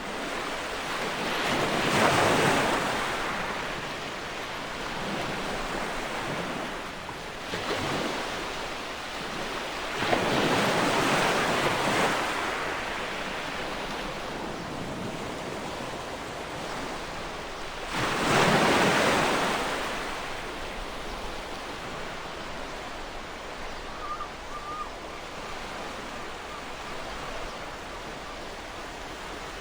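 Ocean waves breaking on a shore: four waves surge up and wash out in turn, the loudest about two seconds in and near the two-thirds mark, over a steady hiss of surf between them.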